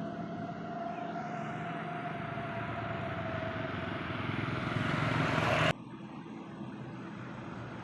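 A road vehicle approaching and passing close, its noise growing steadily louder for about five seconds and then cutting off suddenly, leaving quieter steady traffic noise.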